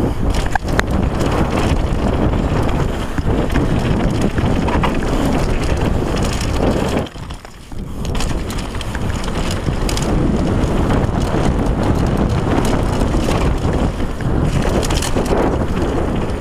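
Wind buffeting an action camera's microphone over the tyre noise and rattle of a downhill mountain bike riding fast down a dry dirt trail. The noise drops away briefly about seven seconds in.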